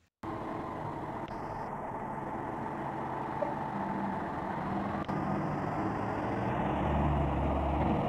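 Fire engine's diesel engine running with a steady rumble, growing gradually louder as the truck moves off.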